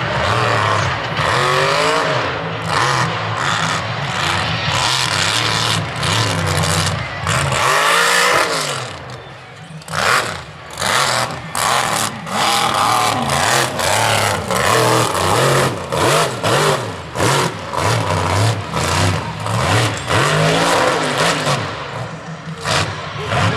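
Mud bog truck's engine revving hard in repeated surges, its pitch rising and falling, with a short easing-off about nine seconds in.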